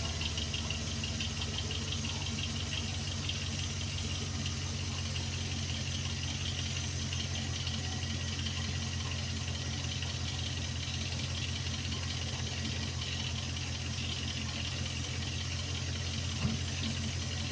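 2001 Jeep Grand Cherokee 4.7 L PowerTech V8 idling steadily with a low-end knock, which the owner says comes only when the engine is cold and questions as rod knock. One sharper knock stands out near the end.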